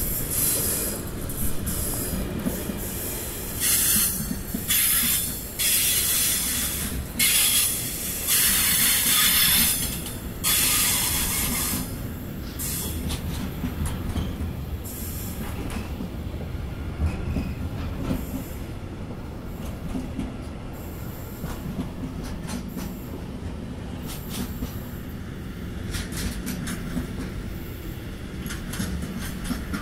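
Long freight train of container and tank-container wagons rolling slowly past with a steady low rumble. During the first dozen seconds the wheels give off repeated bursts of high-pitched squeal. After that, the rumble carries on with scattered clicks of wheels over the rail joints.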